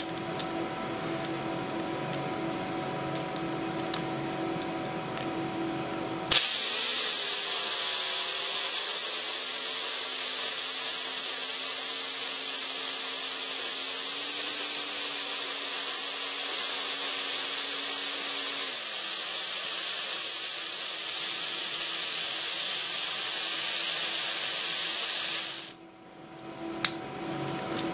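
A Dremel rotary tool spinning a 3D-printed herringbone gear bearing at full speed: it starts suddenly about six seconds in with a loud, high whine and hiss, runs steadily for nearly twenty seconds, then cuts off near the end, followed by a single click. Before it starts, a steady low hum.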